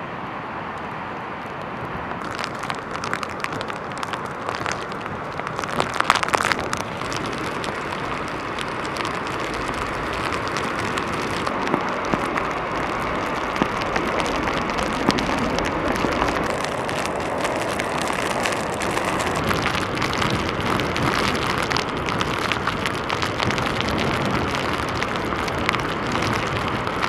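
Heavy hurricane surf breaking and rushing over rocks, mixed with wind and a dense crackle of rain and spray. It grows louder about two seconds in and stays a steady roar.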